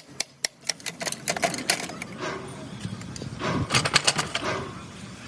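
Irregular sharp metallic clicks and clinks, denser about three and a half seconds in, from hand work on a Hino truck's hi-low gearbox.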